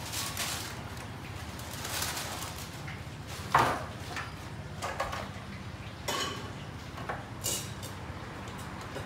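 A handful of short knocks and clatter from objects being handled, about six in all, the loudest about three and a half seconds in, over a steady low hum.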